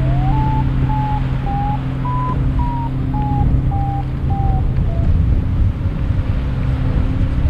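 Paragliding variometer beeping about twice a second, its pitch stepping up and down with the climb rate, signalling that the glider is climbing. The beeping stops about five seconds in and gives way to a faint low steady tone. Strong wind rush on the microphone runs underneath.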